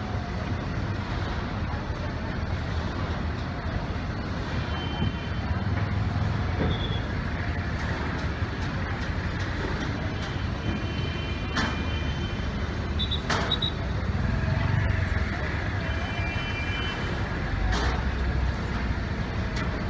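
Road traffic noise: motor vehicles running steadily, with several short high-pitched tones and a few sharp clicks.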